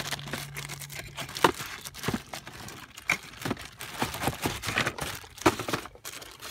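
Cabin air filter being pulled out of its slot behind the glove box: the filter scraping and crinkling against its housing, in a run of short, irregular rustles and clicks.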